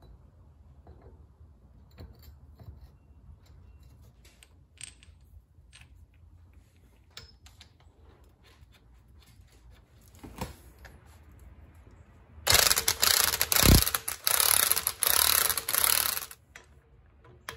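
Power wrench, most likely an impact wrench, running loudly in about four short bursts over some four seconds, running the nut onto a new pinion yoke on a Dana 30 axle. Before it come faint clicks and taps of tools and parts being handled, with one sharper knock.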